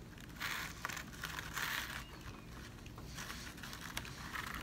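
Quiet, soft rustling and crinkling of an artificial flower and string handled by hands, as string is wrapped and tied around the flower's stem, in several short bouts.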